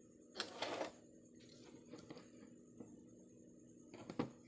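Handling noise as the plastic drone body is moved about on a wooden desk: a brief scrape about half a second in, a few faint clicks, and another short scrape ending in a sharp tap near the end, over a steady low hum.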